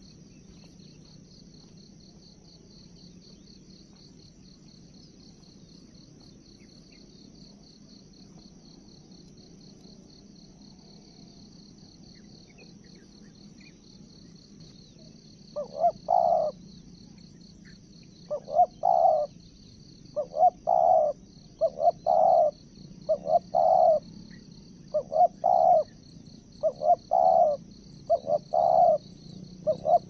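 Spotted dove cooing: from about halfway through, a run of loud, close coo phrases repeated about once every second and a half. A steady high insect trill runs underneath.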